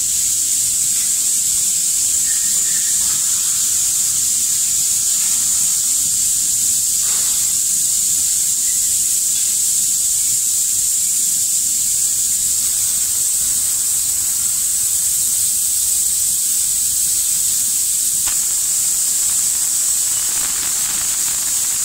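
Steady, high-pitched hiss of air from spray-painting equipment, unchanging in level.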